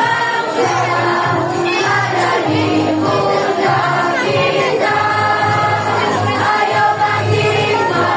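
A junior high school choir of students singing together in a group, continuously.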